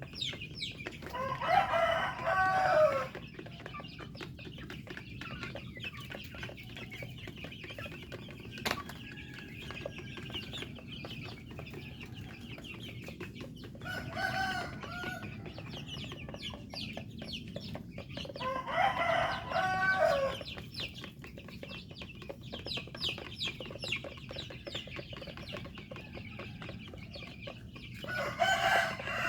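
A rooster crowing four times, each crow lasting one to two seconds, over steady clucking from a flock of chickens.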